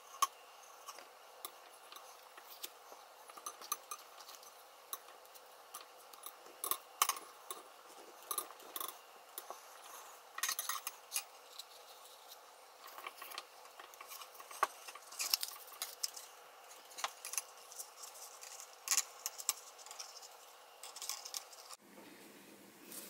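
Faint, irregular small clicks, taps and rustles of hands handling a thin copper pipe and taping a paper funnel onto its end.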